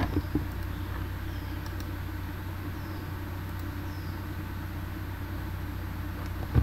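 Steady low background hum with a faint hiss, and two short clicks close together near the start.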